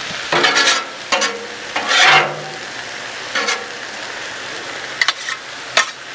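Peppers, onions and mushrooms sizzling steadily on a steel flat-top griddle. A metal spatula scrapes across the griddle surface in about six short, loud strokes.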